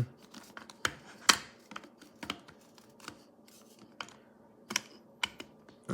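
Irregular plastic clicks and taps from the lid of a portable electric coffee grinder being turned and fitted onto the body, with the sharpest click just over a second in.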